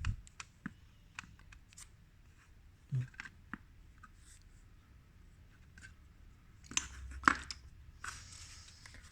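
Small clicks and taps of CD-player mechanism parts being handled and fitted, scattered throughout, with a dull knock about three seconds in and two sharper knocks about seven seconds in.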